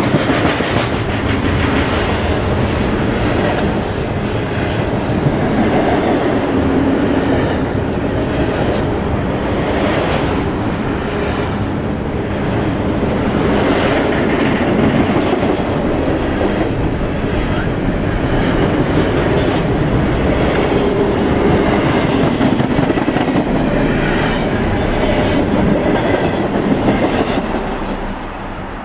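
Double-stack container freight train rolling past, its wheels rumbling and clattering over the rail joints. The sound falls away near the end as the last car goes by.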